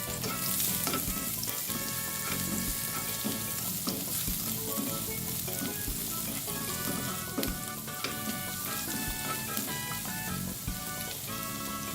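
Chopped garlic sizzling steadily in hot cooking oil in a pan on medium heat, with a few light knocks of a spatula stirring it. Soft background music plays underneath.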